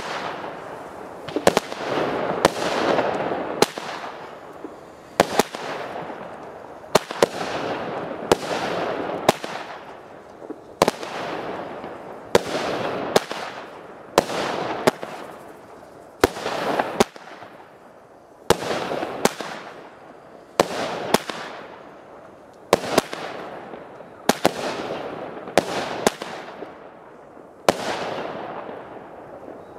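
A 16-shot fireworks battery firing: a sharp bang every second or two, often in quick pairs of launch and burst, each followed by a rush of noise that fades away. The shots stop about two seconds before the end.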